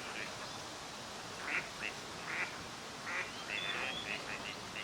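Gadwalls calling: a handful of short calls spaced out at first, then several in quick succession near the end.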